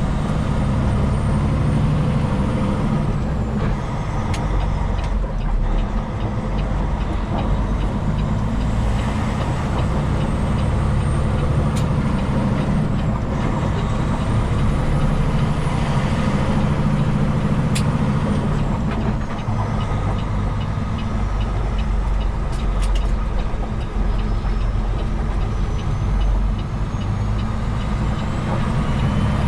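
Semi truck's diesel engine running steadily under way, heard from inside the cab of a 2022 Peterbilt 389. A faint, regular ticking comes and goes in the second half.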